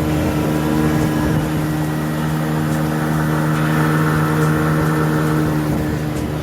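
Boat motor running at a steady pitch, easing off slightly near the end.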